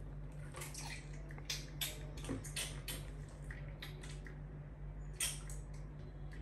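Scattered light clicks and rattles of plastic toys and school supplies being handled and rummaged through in a dresser drawer, over a steady low electrical hum.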